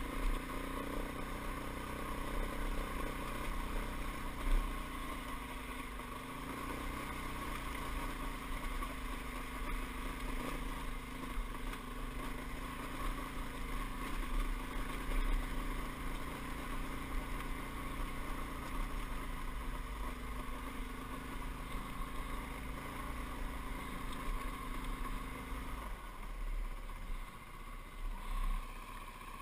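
Dirt bike engine running steadily as the bike climbs a rocky jeep trail, with a few jolts from the rough ground. Near the end the engine note drops away as the throttle eases.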